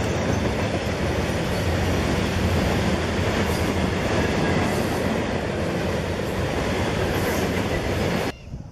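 Freight train's open-top hopper cars rolling past close by, a steady rumble and clatter of wheels on rail that cuts off suddenly near the end.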